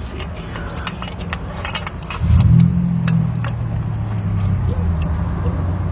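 Small metal clinks from hand tools, then about two seconds in a car engine starts up and keeps running with a low steady hum.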